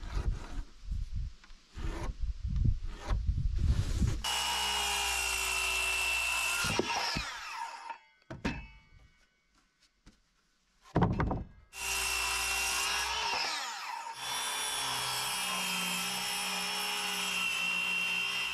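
A few knocks of handling wood. About four seconds in, a Ryobi battery-powered circular saw starts and rips a 1.5-inch wet pine board, then spins down near seven seconds. After a short pause it starts again about eleven seconds in and cuts steadily.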